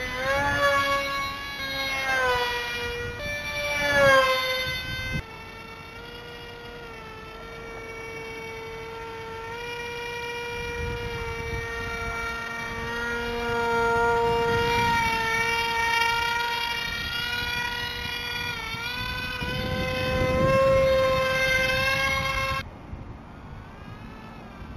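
Electric motor and propeller of a foam RC Mig-29 jet whining at high throttle on fly-by passes. Its pitch swoops up and down several times in the first few seconds as the plane passes, then holds steadier with slow bends, and it cuts off abruptly near the end.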